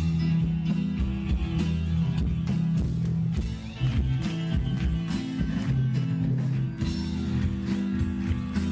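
Live rock band playing an instrumental passage without singing: guitar to the fore over bass and drums, with regular drum and cymbal strokes.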